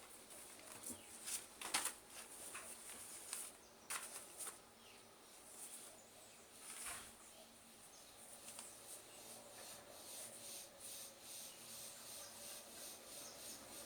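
Faint rustling and crinkling of packaging and T-shirts being handled, with a few louder crinkles in the first few seconds, over a faint steady hum.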